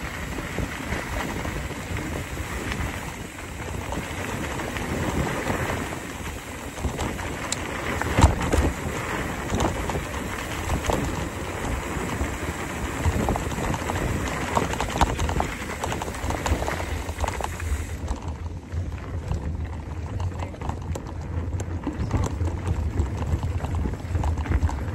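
Wind buffeting the microphone and mountain bike tyres rolling fast over a rough dirt trail, with constant clattering knocks from bumps and a sharp jolt about eight seconds in. From about eighteen seconds on the hiss thins out and a low wind rumble takes over.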